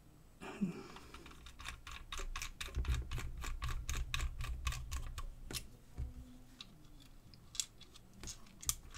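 Small screwdriver turning a fine-threaded screw into the plastic housing of a digital tire pressure gauge. A quick run of small ticks lasts for a few seconds in the middle, with low rubbing from the hands gripping the body, and a few scattered clicks follow.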